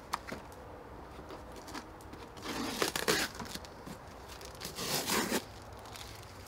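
Cardboard parts box being torn open: two rough tearing bursts, about two and a half and five seconds in, with a few light knocks near the start.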